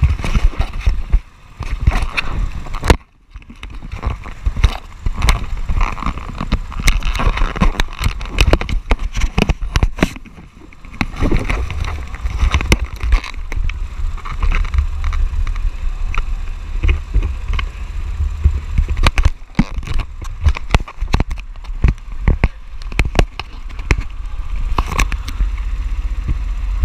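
Handling noise from a camera jostled and rubbed inside a go-kart: a heavy low rumble with constant knocks and scraping on the microphone, cutting out briefly about three seconds in.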